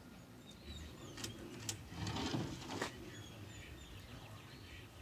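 Songbirds chirping in the background, with a few sharp clicks and a brief scraping rustle about two seconds in, from a speed square and pencil being worked along the edge of a plywood sheet.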